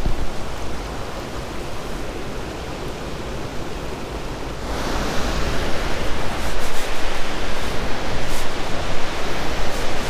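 Aira Beck, a fast mountain stream, rushing over rocky cascades as a steady hiss of water. It is duller and quieter in the first half, then suddenly louder and brighter about halfway through.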